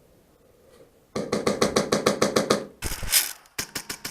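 Airsoft rifle firing on full-auto at about ten shots a second: a burst of about a second and a half, a short hiss, then another burst near the end.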